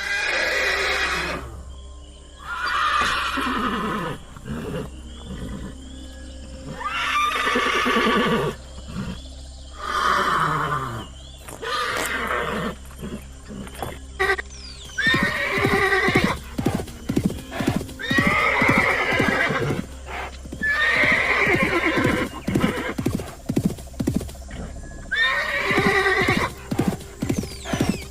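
A horse whinnying again and again, a long falling call every couple of seconds, coming faster in the second half, with hooves clip-clopping.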